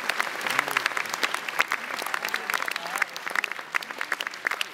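Audience applauding, with individual hand claps standing out.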